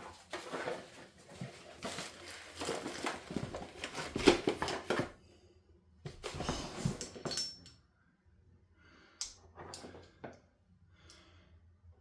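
Irregular handling noises of parts and tools on a workbench: clattering knocks and rustling for about five seconds, another short stretch a second later, then a few scattered light clicks.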